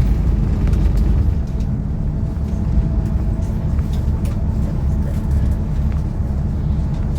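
City bus running along the road, heard from inside the cabin: a steady low rumble of engine and tyres with a few faint ticks.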